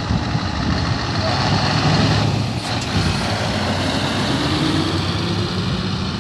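Scania R-series truck tractor's diesel engine pulling away and driving past, its pitch rising as it accelerates.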